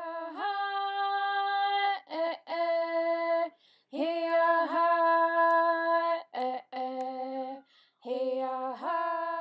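A woman's voice singing unaccompanied, in long held notes grouped in short phrases with brief breaks between them.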